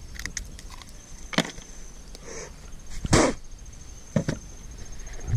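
Scattered clicks and knocks from gear being handled on a plastic kayak while a caught piranha is held, with a short voice-like sound about three seconds in and a faint steady high whine behind.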